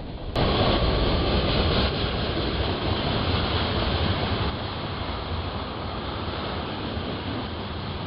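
Steady rumble and rushing noise of a passing train, starting abruptly just after the beginning and slowly easing off.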